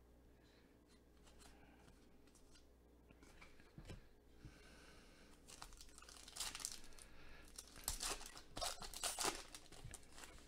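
Foil trading-card pack, a 2020 Leaf Draft football pack, torn open by hand, its wrapper crinkling in a quick run of loud tears from about halfway in. Before that, only faint handling of cards.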